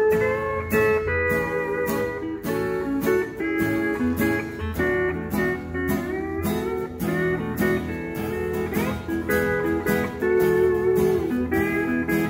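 Pedal steel guitar (an Excel) playing a melody with sliding notes over a steadily strummed acoustic guitar, in an instrumental country passage.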